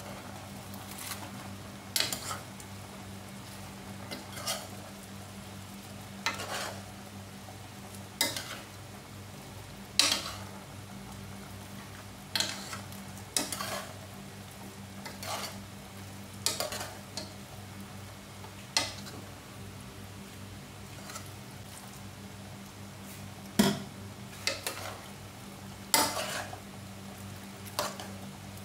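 A metal utensil scraping and clinking against a stainless steel pot as bok choy is stirred and turned over in it. The clinks come irregularly, every second or two, over a steady low hum.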